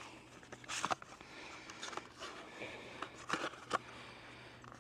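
Light handling noises, a few soft clicks and rustles, as a Starlink power supply and its strapped cable are lifted out of the box and unwrapped.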